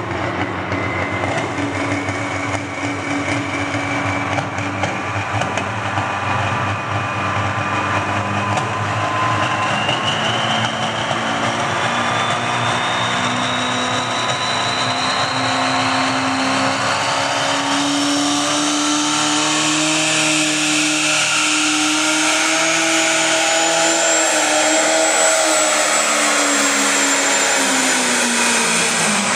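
Turbocharged diesel engine of a Massey Ferguson light pro stock pulling tractor, running hooked to the sled and then at full throttle pulling the sled down the track. A high whine climbs steadily in pitch through the middle of the pull, and the engine note drops near the end as the throttle comes off.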